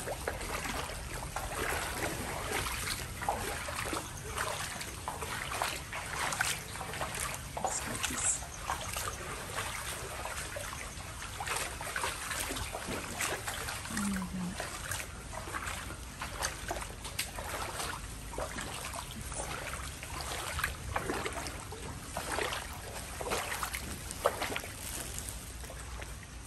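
Footsteps wading through shallow floodwater, splashing and sloshing irregularly with each step, over light rain falling on the water.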